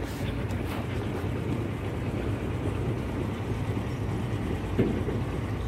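Engine of a flat pontoon river car ferry running with a steady low drone, with one brief thump a little before the end.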